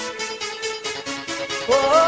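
1990s Eurodance track: a synth melody of short notes over a steady, quick electronic beat. A woman's singing voice comes in near the end and the music gets louder.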